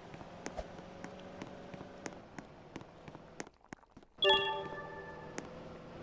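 A short chime of several steady tones rings out about four seconds in and fades over scattered small clicks and taps.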